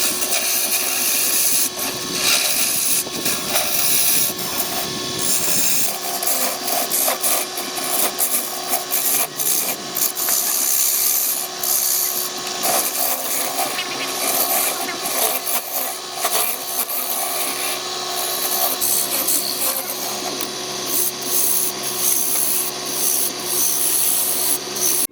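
Wood lathe running with a hand tool pressed against the spinning wood: a loud, continuous scraping noise over the steady hum of the lathe's motor, cutting off suddenly at the end.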